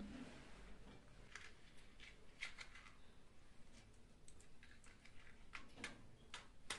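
Faint scattered clicks and rustles of dry kindling being arranged by hand in the firebox of a clay stove, a few light ticks a second apart.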